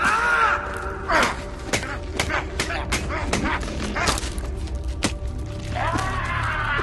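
Film fight-scene soundtrack: shrill cries that rise and fall at the start and again near the end, a rapid run of sharp hits and whacks between them, over a low rumble and a musical score.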